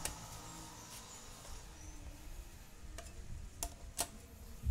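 Socket wrench tightening a bolt on a motorcycle engine: a few sharp metallic clicks, one at the start and three close together about three to four seconds in.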